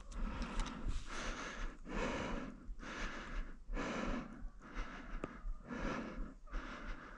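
A person breathing hard and rhythmically, about one breath a second, as if out of breath from moving through the forest.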